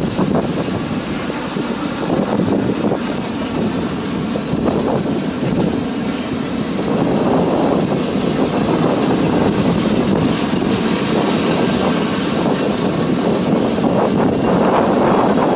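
Freight train rolling past, a steady loud rolling noise of steel wheels on rail that grows a little louder in the second half.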